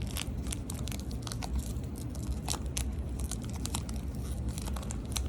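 Foil trading-card pack wrapper crinkling and tearing as it is ripped open by hand, with irregular crackles throughout.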